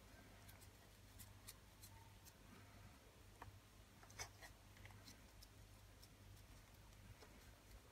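Near silence: a low steady hum under faint, scattered small clicks and rubs from gloved hands working paste onto a rusty metal fork, the sharpest click about four seconds in.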